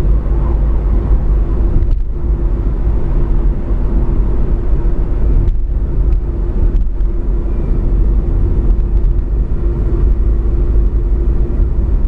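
Car being driven: steady engine and road noise, a low rumble with a steady hum, broken by a few momentary dips.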